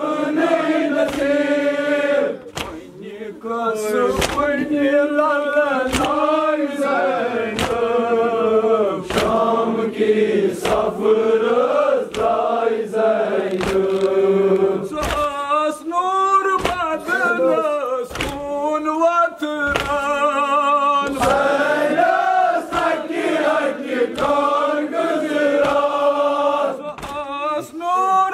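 A group of men chanting a Kashmiri noha, a Muharram mourning lament, in unison. Sharp beats keep time roughly once a second.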